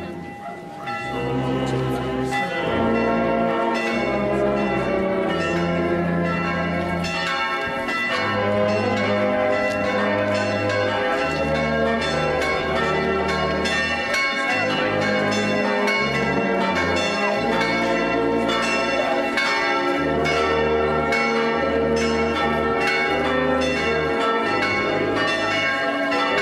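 Church bells in the church tower ringing together, a dense peal of repeated strokes at several pitches overlapping.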